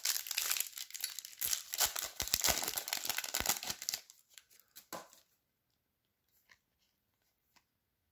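Foil trading-card pack wrapper being torn open and crinkled by hand, a dense crackling that stops about five seconds in.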